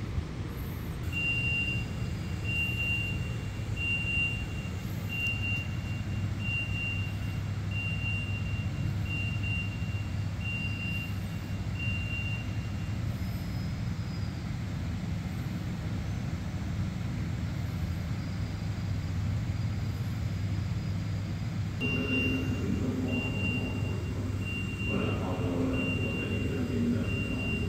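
A steady low rumble, with a short high-pitched beep repeating a little more often than once a second. The beeping stops after about twelve seconds and starts again about eight seconds from the end, when some busier sound joins the rumble.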